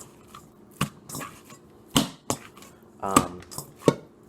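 Ground beef being mixed by hand with seasonings in a bowl: a handful of sharp, separate slaps and knocks a second or so apart.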